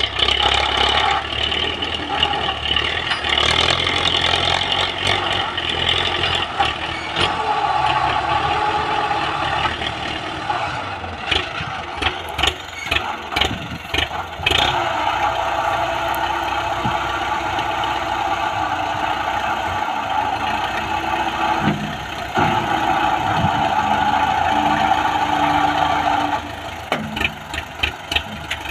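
Old tractor's diesel engine running steadily as its front loader pushes into and lifts loose dirt, with runs of sharp knocks about halfway through and near the end.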